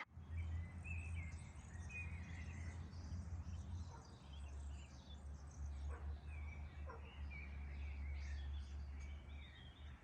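Small birds chirping and twittering on and off over a steady low rumble.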